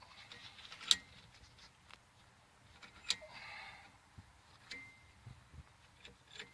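A few light metallic clicks and clinks from tools and brake parts being handled, the sharpest about a second in, with a brief scraping rattle around three seconds in.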